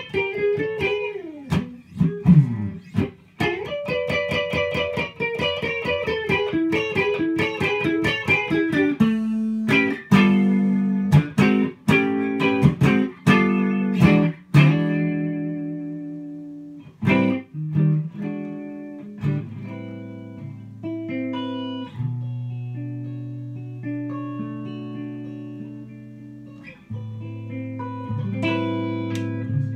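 Framus 5/110 Atlantic semi-hollow electric guitar played through a Tone King Gremlin amp and picked up by a phone's microphone. It starts with a fast improvised run of picked single notes with slides, and from about nine seconds in moves to strummed chords. These ease into slower, ringing low chords with single notes picked over them, getting busier again near the end.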